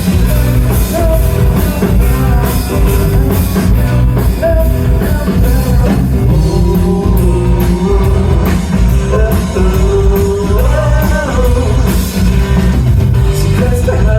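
Live rock band playing loudly, drum kit and guitar with a voice singing over them.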